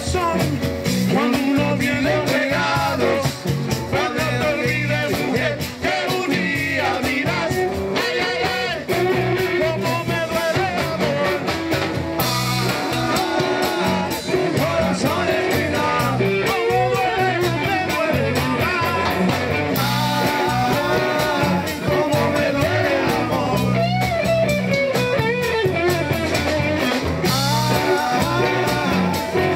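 Live Latin rock band playing: a man sings into a microphone over electric guitar, congas, drum kit and maracas, with cymbal crashes a few times.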